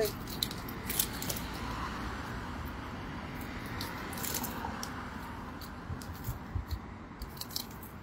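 Nylon cast net rustling and crackling as it is shaken out by hand, with irregular soft slaps and thumps of tilapia dropping and flopping on concrete pavement.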